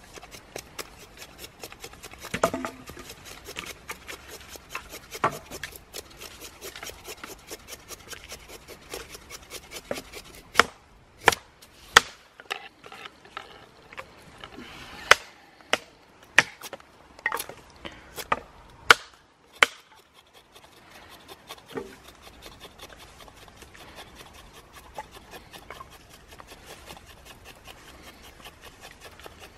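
Knife whittling a wooden stick: quick shaving and scraping strokes of the blade on the wood. Through the middle comes a run of about nine loud, sharp wooden knocks, a second or so apart, before the quieter scraping resumes.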